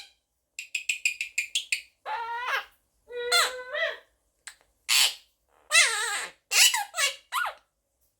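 Monk parakeet (Quaker parrot) chattering: a quick run of about ten short clipped notes in the first two seconds, then a string of squawky calls that bend up and down in pitch, the last few sliding downward.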